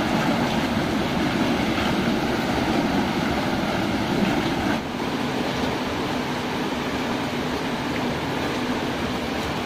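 Water rushing and churning as it pours out through the opened sluice gate of a tiger prawn pond being drained for harvest, a loud steady rush. About five seconds in it drops a little and a faint steady hum comes in.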